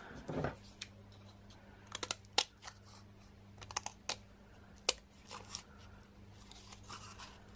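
Scissors snipping into thin card to cut a slot, a series of sharp snips in small clusters, over a faint steady low hum.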